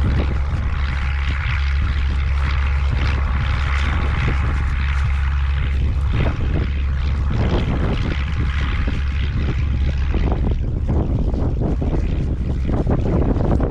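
A horse-drawn cart in motion: a steady low rumble, with a run of rattling knocks from about halfway through.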